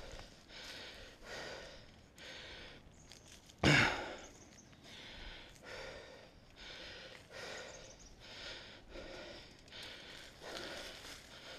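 Mountain biker's heavy, rhythmic breathing close to the microphone while riding, about one and a half breaths a second, with one sudden louder burst about four seconds in.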